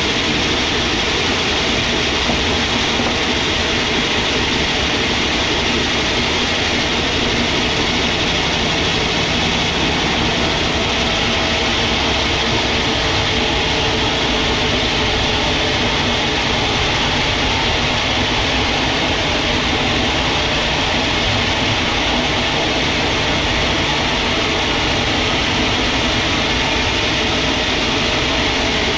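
Sawmill machinery running steadily, a continuous heavy mechanical noise with no breaks.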